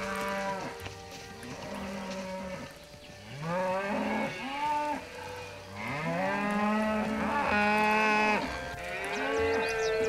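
Cattle mooing: a run of long, drawn-out moos, one after another and sometimes overlapping, several rising in pitch as they begin. The loudest comes about three quarters of the way through.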